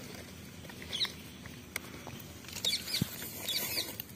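Small birds chirping, a quick run of several chirps in the second half, over light clicks and crinkles of plastic sachets being handled and torn open.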